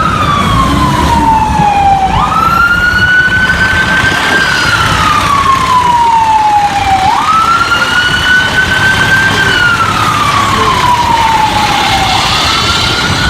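Fire truck siren on a slow wail, about three cycles, each jumping up in pitch and then sliding down over several seconds, with engine rumble underneath.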